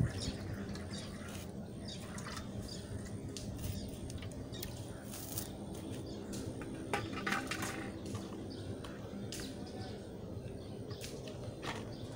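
Aluminium cooking pots and basins clinking against each other, with water splashing, as dishes are washed by hand; the clinks come at irregular moments.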